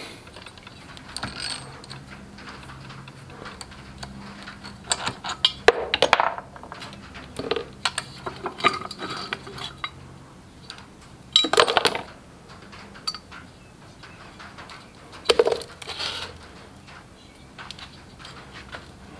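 Steel head bolts and a socket ratchet clinking against metal as the cylinder head of a Kohler K301 cast-iron engine is unbolted and lifted off. The sharp clinks come in scattered clusters, loudest about six, twelve and fifteen seconds in.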